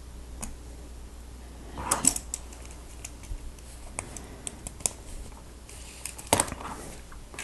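Small plastic Lego Technic pieces clicking and rattling as they are handled, with a cluster of clicks about two seconds in and another about six seconds in.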